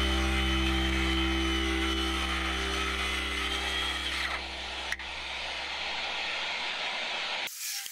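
HiKOKI cordless dust-collecting circular saw cutting 12 mm plywood: a steady, slightly wavering whine from the motor and blade under load. The whine fades about four seconds in as the cut ends, there is a single click about a second later, and the sound stops abruptly near the end.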